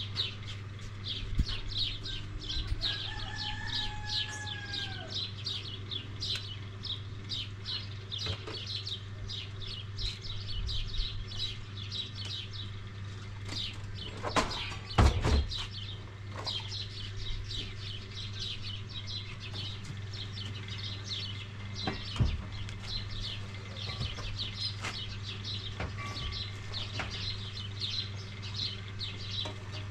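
Many small birds chirping rapidly and continuously, over a steady low hum, with a few sharp knocks, the loudest about halfway through.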